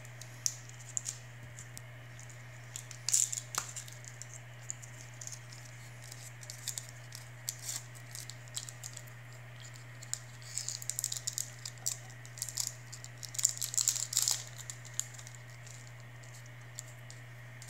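Paper wrapper of a Tootsie Roll crinkling and tearing as fingers pull it open, in scattered crackling bursts, busiest about three seconds in and again from about ten to fifteen seconds. A steady low hum runs underneath.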